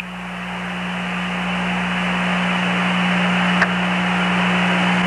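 Radio static on the Apollo 11 air-to-ground voice link between transmissions: a steady hiss over a low hum, slowly growing louder, with one faint click about three and a half seconds in.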